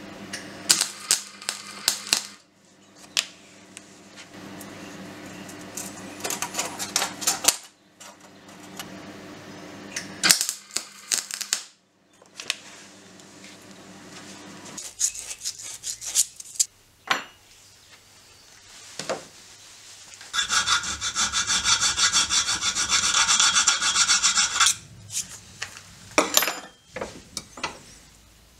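Small steel lock and key parts being worked by hand on a steel bench: scattered sharp metallic clicks and taps, then about four seconds of steady, rhythmic scraping of metal, the loudest part, about two-thirds of the way through.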